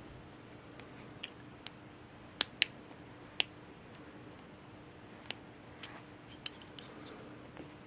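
Scattered sharp metallic clicks and taps of a thin flat-blade screwdriver against the metal cover and body of a Toshiba S-AV17 RF power module being pried apart; the loudest pair comes about two and a half seconds in.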